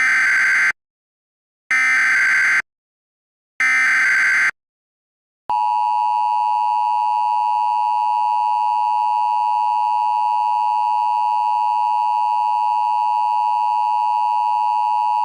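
Emergency Alert System alert opening: three short bursts of SAME header data, about two seconds apart, then the steady two-tone EAS attention signal held for about ten seconds before it cuts off.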